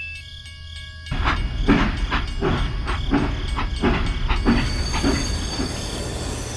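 A few steady chime-like tones, then, about a second in, a small machine starts running with a steady low hum and a regular knocking about two and a half times a second.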